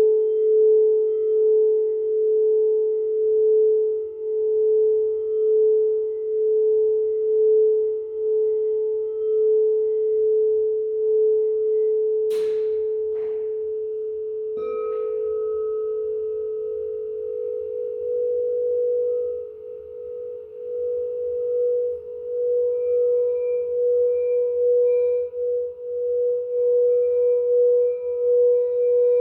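Singing bowls ringing with a slow, wavering pulse. Two brief clicks come just past the middle, then a second bowl is struck and sets off a slightly higher ringing tone.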